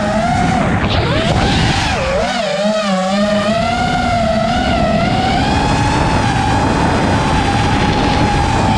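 5-inch FPV quadcopter's brushless motors and propellers (iFlight Xing 2306.5 1777kv on 6S, Gemfan Hurricane 5143 props) whining. For the first three seconds or so the pitch swings up and down with the throttle, then it holds steady and high.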